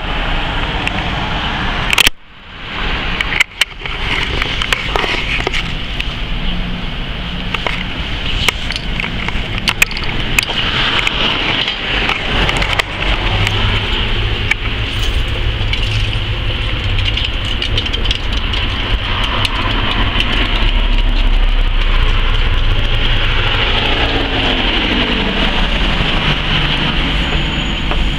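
Outdoor street ambience with car traffic, picked up on a handheld camera's microphone, with handling clicks and a sudden brief drop-out about two seconds in. A low rumble from a passing vehicle sets in about halfway through and fades near the end.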